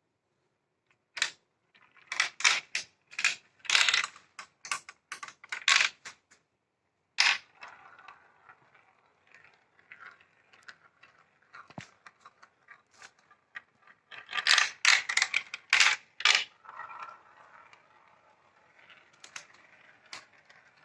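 Marbles clattering and rolling along plastic marble-run track. There are bursts of sharp clicks and knocks in the first six seconds and again around fifteen seconds in, and a steady rolling rattle in between.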